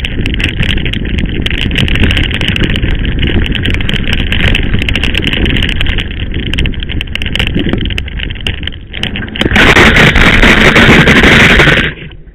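Mountain bike rattling down a rough dirt track, the camera picking up constant clatter, tyre noise and wind. About nine and a half seconds in, a loud rough rush of noise lasts about two seconds as the bike crashes, then cuts off suddenly.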